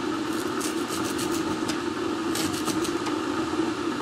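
Kitchen knife slicing a leek into small rings on a plastic cutting board, in quick runs of short cuts with brief pauses between, over a steady low hum.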